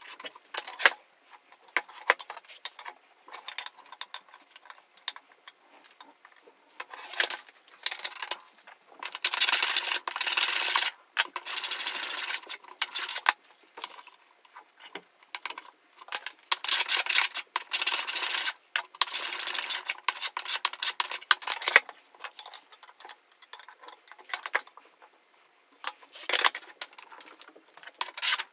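Shop Fox D3751 shoulder plane shaving wood along a board's edge in repeated strokes, each a rasping hiss a second or two long. Between the strokes come clicks and taps as the plane is handled and adjusted.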